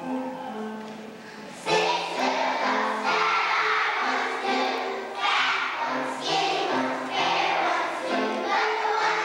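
A children's choir singing with instrumental accompaniment. The accompaniment plays alone at first, and the children's voices come in loudly about two seconds in, singing in phrases.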